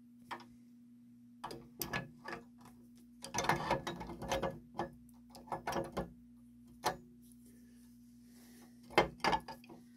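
Metal clicks and clinks of a clock-movement gear and brass lantern pinion being handled, slid onto a shaft and meshed by hand. A cluster of rattling clicks comes about three to four and a half seconds in, and the loudest, a sharp knock, near the end, over a faint steady low hum.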